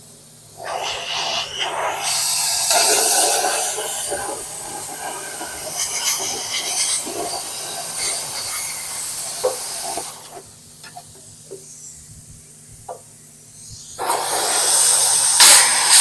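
Rusted steel frame rail being cut out with a power cutting tool: long, loud hissing cutting passes that stop for a few seconds about ten seconds in, then start again.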